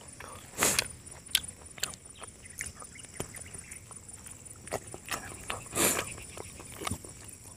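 Eating sounds close to the microphone: grilled chicken being pulled apart, then bitten and chewed, heard as many small clicks and wet smacks with two louder rustles. A steady high insect chirring runs underneath.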